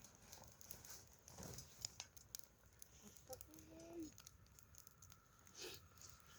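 Faint, sparse crackling ticks of a wood campfire, close to silence, with a brief faint tone about three and a half seconds in.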